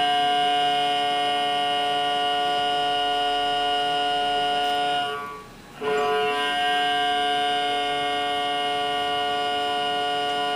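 Music: one sustained, unchanging chord held for about five seconds, fading out briefly, then struck again and held to the end.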